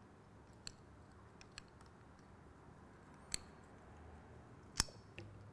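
A handful of separate light metallic clicks and taps as the parts of an aftermarket motorcycle rearset are handled and fitted together by hand, the sharpest click near the end.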